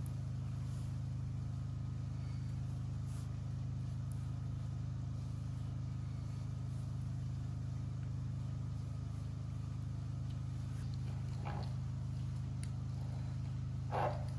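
Steady low hum throughout. Near the end come two short scraping sounds, the second louder, as a fluted pasta cutting wheel is set to the ravioli dough.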